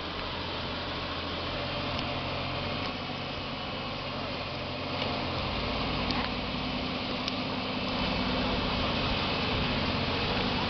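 MAN TGS 40.440 6x6 tractor unit's diesel engine running at low speed as the truck crawls closer. Its steady low drone gets louder about five seconds in and again near eight seconds.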